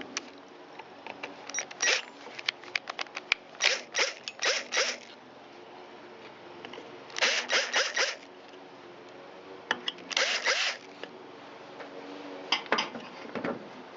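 Hand-tool work on a string trimmer's muffler to get at the spark arrestor: scattered sharp clicks and about five short noisy bursts, each under a second.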